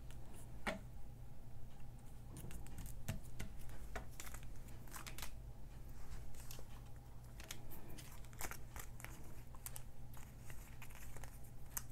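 Paper crinkling and crackling in the hands as a die-cut paper word sticker is peeled and picked from its backing sheet, a run of small irregular crackles and rustles.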